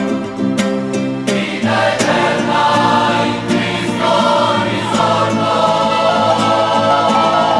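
A choir singing a Christian song with instrumental accompaniment.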